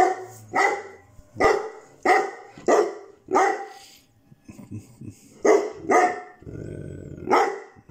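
Caucasian Shepherd dog barking: a run of six barks about one every half second, a pause around four seconds in, then three more, with a low growl just before the last one.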